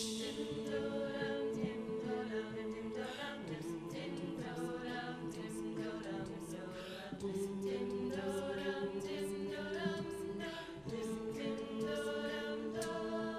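A cappella group singing held vocal chords that change every few seconds, over a steady vocal-percussion beat.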